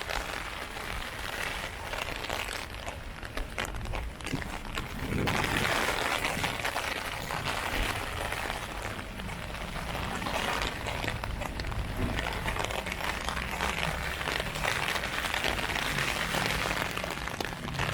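Heavy rain falling on an umbrella: a dense, steady patter of drops.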